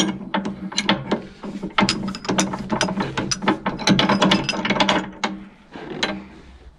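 Rapid, irregular metallic clicking and rattling of a tractor PTO driveshaft as its yoke is twisted back and forth and worked onto the rotary tiller's splined input shaft. The clicks are densest for about five seconds and then thin out.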